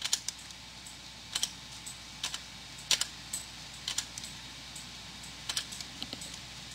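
Computer keyboard space bar pressed repeatedly at irregular intervals, about ten sharp clicks, some in quick pairs.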